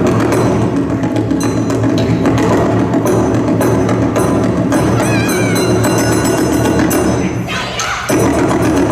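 Loud, upbeat yosakoi dance music with driving percussion. About seven and a half seconds in it briefly drops away, then comes straight back in at full level.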